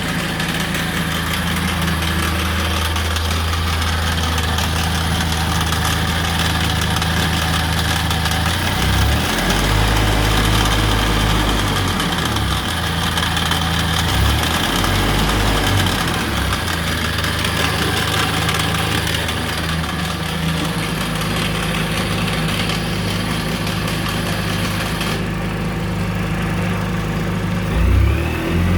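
Suzuki Burgman 650 maxi-scooter's parallel-twin engine and automatic CVT drive running with a low drone whose pitch shifts in steps several times in the middle. This is the odd drive noise the owner hears in auto mode and cannot explain.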